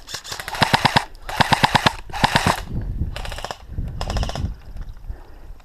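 Airsoft rifle firing BBs in five short full-auto bursts of rapid clicks, laying down cover fire. The bursts fade out about four and a half seconds in.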